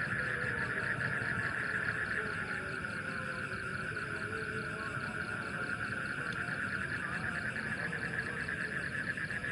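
Steady night chorus of frogs and insects: a dense, fast-pulsing trill.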